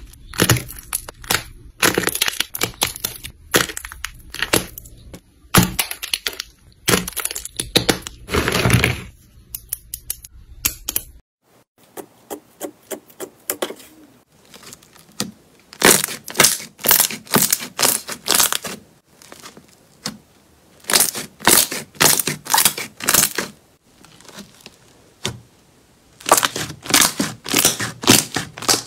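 Slime being squeezed and pressed by hand: dense crackling as pale blue, glitter-flecked slime cubes are squished and broken apart, then, after a sudden change about a third of the way in, bursts of rapid clicking as glossy pink slime is pressed and stretched.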